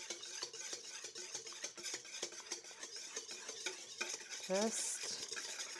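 Wire whisk beating eggs and vanilla in a stainless steel mixing bowl, the wires clinking quickly and steadily against the metal sides as the mixture turns frothy.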